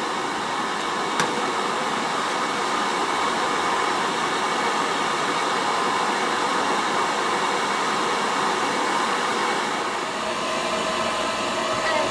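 Steady rushing air from the forced-air supply of a small metal-melting furnace, with one sharp click about a second in.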